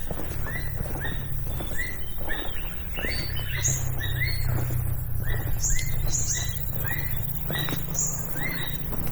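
A bird calling repeatedly in short chirps, about two a second, with an occasional higher note. A steady low rumble runs underneath.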